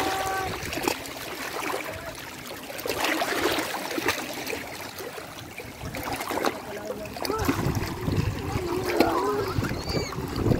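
Shallow seawater splashing and trickling around rocks as children crawl and move about in it.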